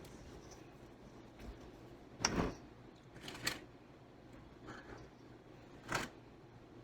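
A few light knocks and clicks of a utensil against a bowl as thick cupcake batter is spooned into liners, the loudest about two seconds in.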